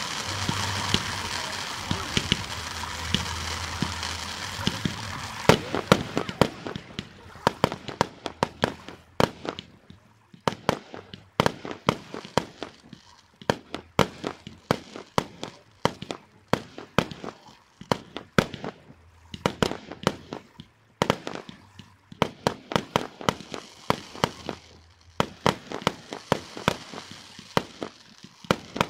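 Fireworks: for about the first five seconds a steady hiss of ground fountains spraying sparks, then a rapid run of sharp bangs and cracks from bursting aerial shells, several a second.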